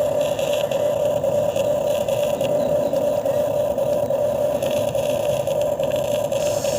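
Radio-controlled model excavator running: a steady, even motor whine, with faint scraping as it works the soil.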